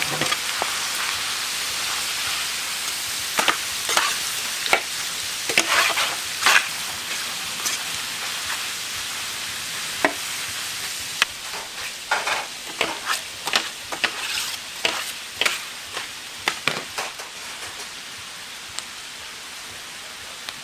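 Mixed pork offal sizzling on a large flat steel griddle while metal spatulas scrape and turn it, with clusters of sharp scrapes and clinks over the steady sizzle. The sizzle grows quieter about halfway through.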